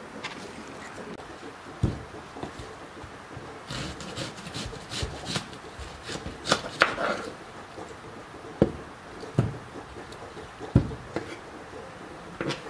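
Scattered knocks and clatter of kitchen work, some single and a few in quick clusters, at uneven intervals.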